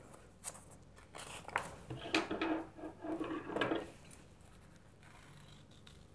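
Sheets of coloured craft paper rustling and flapping as they are lifted and turned over, in a few uneven bursts over the first four seconds, then it goes quiet.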